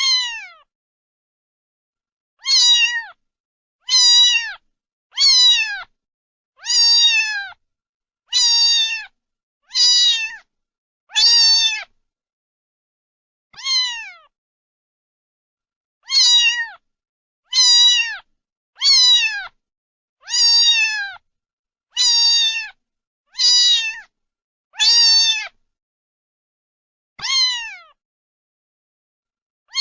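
Domestic cat meowing over and over, about seventeen short meows, mostly a second and a half apart with a few longer pauses, each falling in pitch, with dead silence between them.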